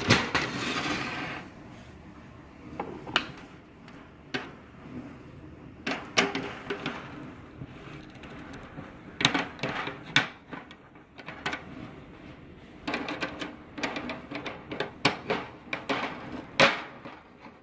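Screwdriver working the screws of a Griffin snare drum's metal snare mechanism, with scattered sharp metal clicks and small knocks as the hardware is loosened and handled. The clicks come closer together near the end, after a short rustle at the start.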